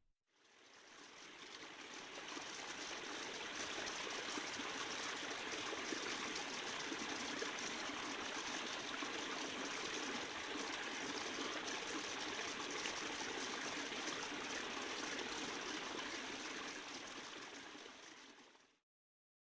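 Small, shallow creek running and trickling steadily, fading in over the first couple of seconds and fading out near the end.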